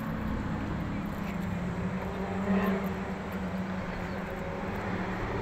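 A moving car's engine and tyres running steadily, a low hum with a held tone.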